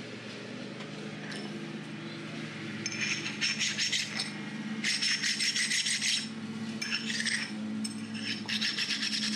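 A precision-ground flat stone rubbed back and forth on the steel gib of a Centec milling machine table slide: several gritty rasping strokes, starting about three seconds in. The gib feels really hard under the stone.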